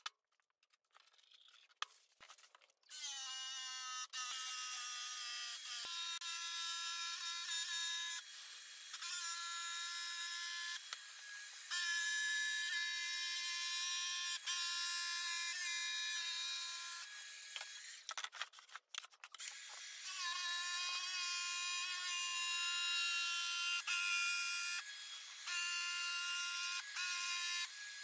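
Makita cordless jigsaw cutting through a sheet of MDF, with a dust-extraction hose drawing at the blade. It makes a steady, high-pitched motor whine. The whine spins up about three seconds in, breaks off briefly a little past halfway, then starts again.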